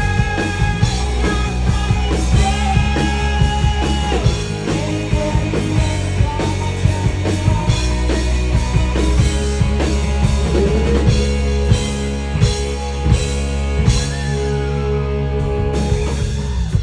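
Live rock band playing an instrumental passage: electric guitar holding long, bending notes over drums and bass. The band stops abruptly at the very end.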